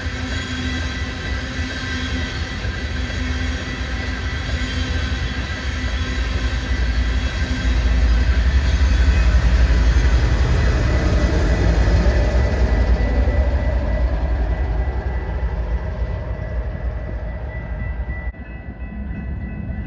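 Freight train of tank cars rolling past: a steady rumble of wheels on rail with a thin, steady high-pitched squeal over it. The rumble is loudest in the middle and drops off suddenly near the end.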